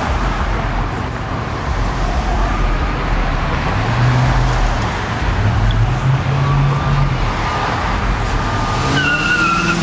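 Steady road traffic: cars passing through an intersection, engine and tyre noise, with a low engine hum swelling through the middle and a brief high-pitched tone near the end.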